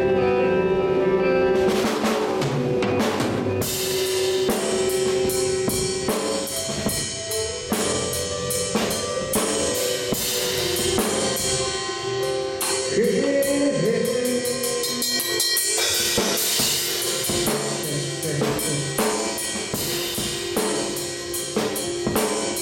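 Drum kit played solo: a dense run of snare, bass drum and rim hits with splashy cymbal wash. A steady pitched tone rings under the drumming for long stretches.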